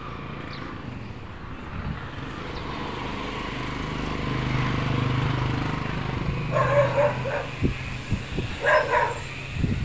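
A dog barks in two short runs of quick barks, about two seconds apart. Under them, the low hum of a passing engine swells and fades.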